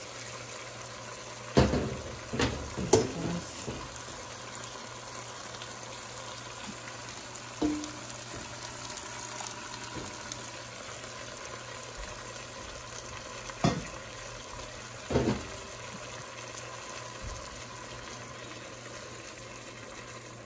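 Chicken and onions sizzling and simmering in a pot as hot water is poured in from a saucepan, with a few sharp knocks scattered through.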